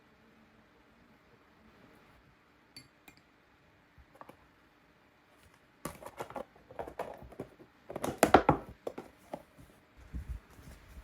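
Clinks and knocks of kitchenware being handled: a few faint isolated clicks, then a busy run of clattering from about six seconds in, loudest around eight seconds in.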